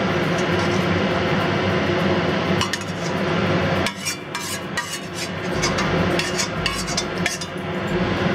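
A spatula scraping and clicking against a wok as braised shiitake mushrooms in oyster sauce are pushed out onto a plate. A steady rushing background noise runs under it for the first four seconds, then drops away.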